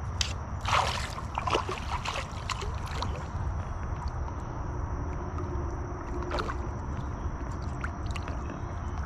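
Hooked bass splashing and thrashing at the water's surface beside the boat, with a few sharp splashes in the first couple of seconds and another about six seconds in, over a steady low rumble.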